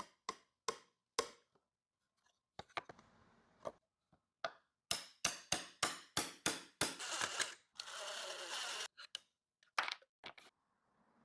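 A woodworking clamp being worked by hand: a series of sharp clicks and snaps, coming about four a second around the middle, then about a second of scraping.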